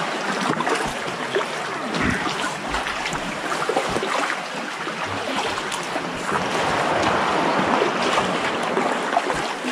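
Kayak paddles dipping and pulling through calm sea water, blades splashing and dripping with each stroke, in a steady wash of water sound.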